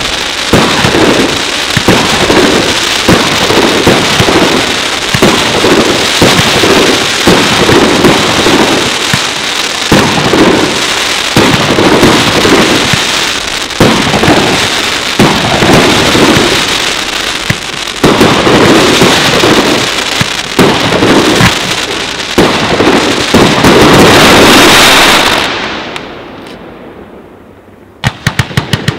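A fireworks barrage: shells and comets firing in quick succession with dense bangs and crackle. It swells to its loudest near the end, then dies away over a couple of seconds. Right at the end, a fast, even string of shots begins.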